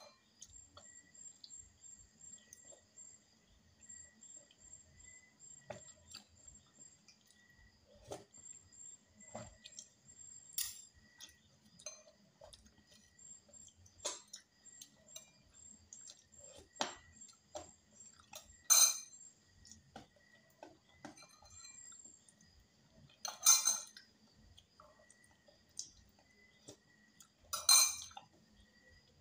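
Close-up eating sounds of a balut meal: soft chewing and mouth clicks with small taps of handling. Three sharp clinks of tableware stand out, spread over the last third.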